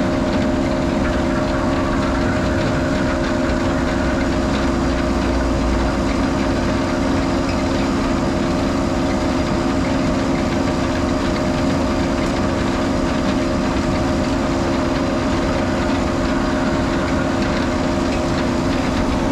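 Holmer sugar beet cleaner/loader's diesel engine running steadily under load, a constant drone that holds one pitch throughout, with a little extra low rumble about a third of the way in.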